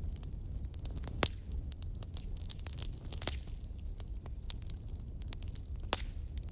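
Slotted metal spatula stirring thick, creamy gravy in a metal kadai, with irregular clicks and scrapes of metal on the pan, the loudest about a second in, near the middle and near the end, over a steady low hum.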